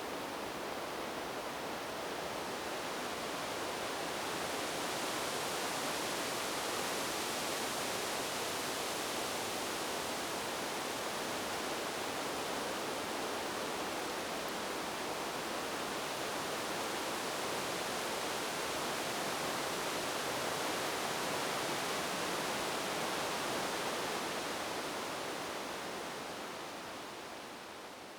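Wind blowing through tree leaves: a steady rustling hiss that swells gently now and then and fades out over the last few seconds.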